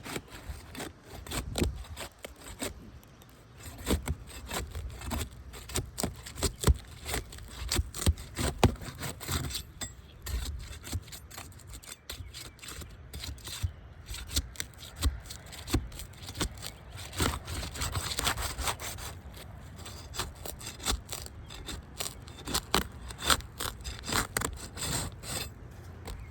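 A laminated asphalt roof shingle being pried and worked loose by hand: irregular scraping and rubbing with many sharp cracks and clicks as it is lifted.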